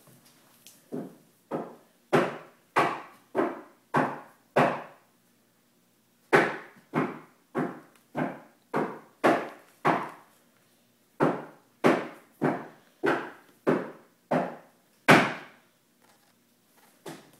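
A run of sharp, loud knocks like hammer blows on wood, about one every 0.6 seconds, each with a short ringing tail. They come in three runs of six or seven with short pauses between.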